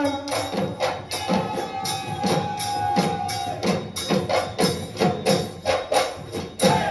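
Bihu folk music without singing: a steady drum beat of about two strokes a second with jingling percussion. About a second in, one held note sounds for a couple of seconds over the beat.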